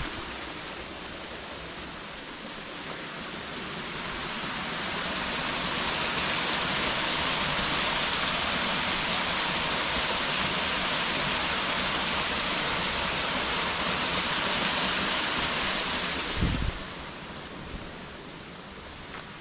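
Waterfall rushing, growing louder over the first few seconds and then holding steady. It falls away sharply after a brief low thump near the end.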